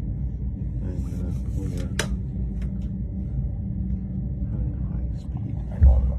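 Steady low rumble of a passenger train heard inside the carriage, with faint voices, a sharp click about two seconds in and a short thump near the end.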